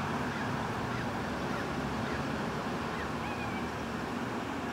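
Steady outdoor background noise with a few faint, short bird calls.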